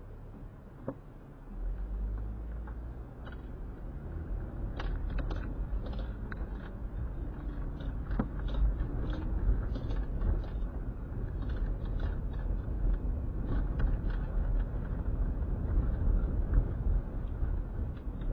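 Car road noise heard from inside the cabin: a low engine and tyre rumble that rises about a second and a half in and keeps growing louder as the car drives on, with scattered light clicks.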